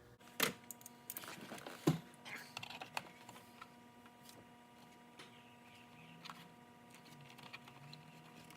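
Scattered clicks and light knocks of hand tools and plastic trim being handled at a car's steering wheel while the horn button is worked loose, over a faint steady hum. The sharpest knocks come about half a second and two seconds in.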